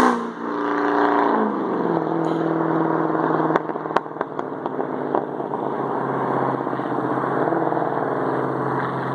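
Exhaust of a 2007 Dodge Charger Daytona R/T's 5.7-litre HEMI V8, running with cat, muffler and resonator deleted, an X-pipe and SRT8 manifolds: the engine note falls in pitch over the first two seconds as the car pulls away, then holds a steady drone. A few sharp pops come between about three and a half and five seconds in.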